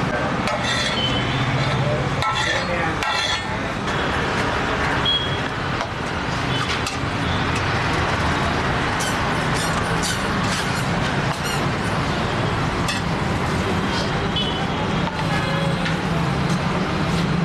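Steady street ambience of traffic noise and indistinct voices, with scattered clinks and scrapes of a metal spatula on a large tawa griddle.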